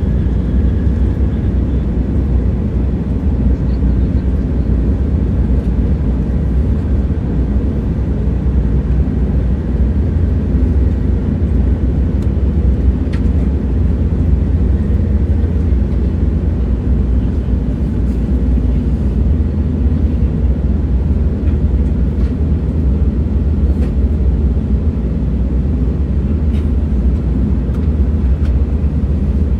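Moving train running steadily: an even, deep rumble that holds without change, with a few faint ticks.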